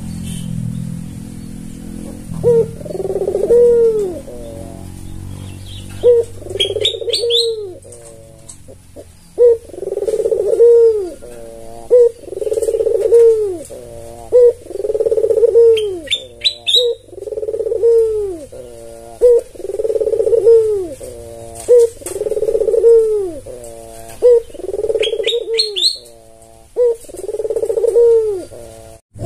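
Albino (white, red-eyed) ringneck dove cooing its characteristic call over and over, a low rolling coo repeated about every two seconds, about a dozen times. Three times a short burst of high rising chirps cuts in between the coos.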